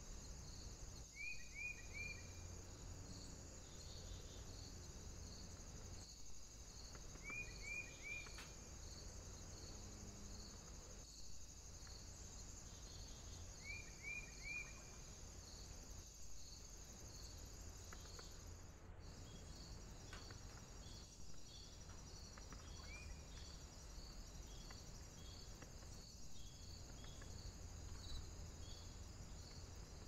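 Faint, steady high-pitched insect trill pulsing about twice a second, with a bird giving short runs of three quick falling notes three times and a single note later.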